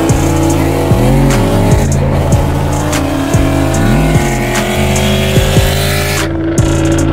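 Bass-heavy backing music with deep sliding bass notes and drum hits. A tone climbs slowly for about six seconds, then the music drops away sharply.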